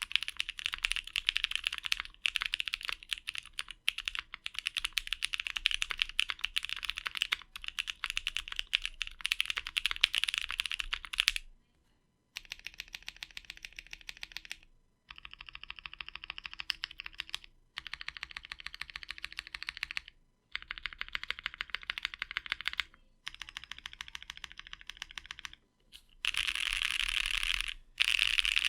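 Typing on a 60% custom mechanical keyboard with lubed Gazzew Boba U4T tactile switches, an aluminium plate, a gummy O-ring mount and GMK keycaps: a dense run of key clicks. About 11 seconds in the typing stops briefly, then comes back as shorter, quieter bursts separated by brief gaps.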